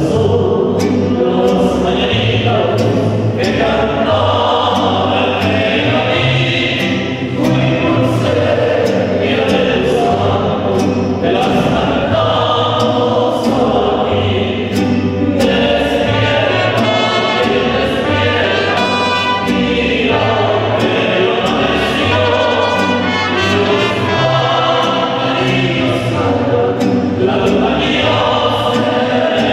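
Mariachi band performing: men's voices singing together over violins, strummed guitars and a stepping guitarrón bass line.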